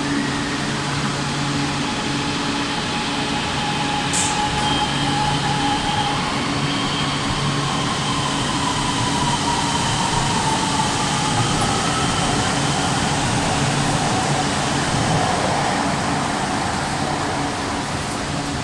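Beijing Subway Fangshan Line BDK03 train pulling away, in the state before its traction software update. Its CRRC Zhuzhou IGBT-VVVF inverter (TGN53D.JP1 control) and YQ-190-3 traction motors whine, with tones that hold and then slide in pitch as the train gathers speed, over a low steady hum.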